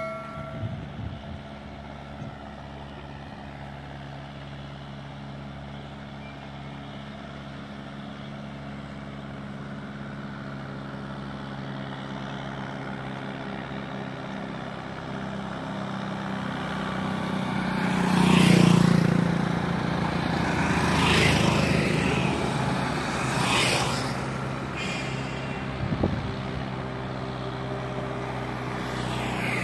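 Hindustan 50 tractor's diesel engine running steadily while pulling a heavily loaded sugarcane trolley, growing slowly louder as it comes closer. About two-thirds of the way through, motorcycles pass close by, each one rising and then fading.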